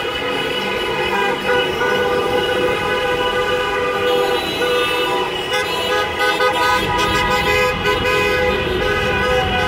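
Many car horns sounding at once in a traffic jam, held and overlapping into a steady chord of several pitches: celebratory honking for Russia's victory over Spain. Low traffic rumble grows louder over the last few seconds.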